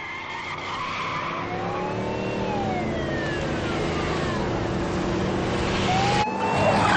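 Police car siren wailing in slow rising and falling sweeps over a steady rumble of engine and road noise from a high-speed car chase. A new rising sweep starts near the end.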